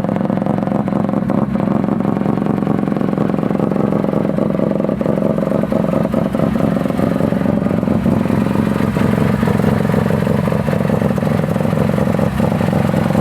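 Mazda RX-7 FD's twin-rotor 13B rotary engine running at steady high revs, its pitch creeping slowly upward, with scattered short sharp pops.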